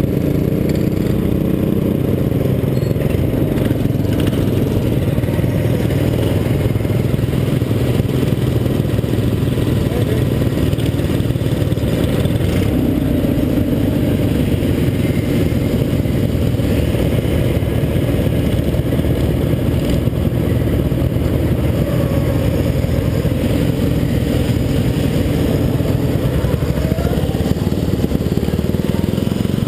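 Racing lawn mower engine running steadily under load, heard from on board the mower, with other racing mowers' engines mixed in.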